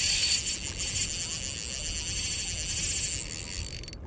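Spinning reel's drag screaming as a big fish runs and pulls line off the spool: a steady, high-pitched rapid buzz that cuts out briefly near the end.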